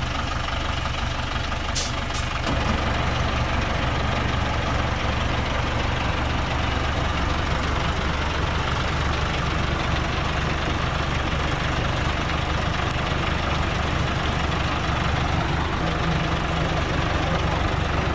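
Diesel engine of a loaded Dongfeng log truck idling steadily, a low even hum. A short sharp click sounds about two seconds in.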